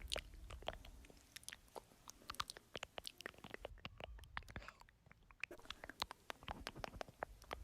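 ASMR mouth sounds: a quick, irregular run of small wet clicks and smacks, a little softer and sparser for a moment near the middle.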